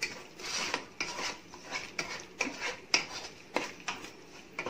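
A spatula stirring and scraping a thick tomato masala around a nonstick pan, in quick repeated strokes, about two or three a second, with small clicks where it knocks the pan.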